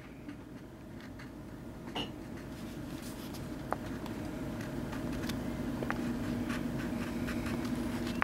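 Red wax crayon rubbing back and forth on paper as flames are coloured in, growing louder through the stretch, with a few light taps. A low steady hum comes in under it in the second half.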